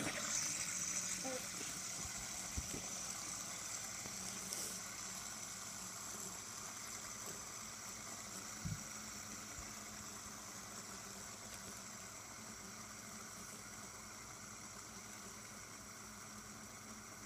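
Disc-shaped fidget spinner spinning flat on a hardwood floor: a steady whirring hiss that starts sharply and slowly dies away as it loses speed, with two soft knocks along the way.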